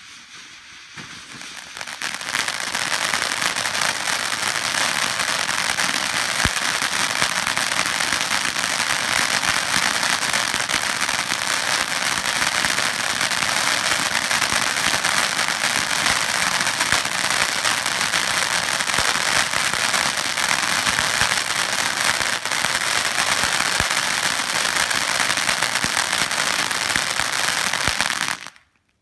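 Kylin King 'Bees Escaping' firework fountain spraying sparks with a dense, steady crackling hiss. It swells over the first two seconds and stops abruptly near the end.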